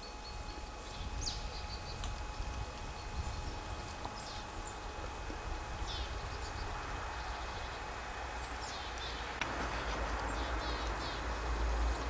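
Scattered short, high bird calls over a steady low rumble. The rumble swells into a broader rushing noise about nine seconds in.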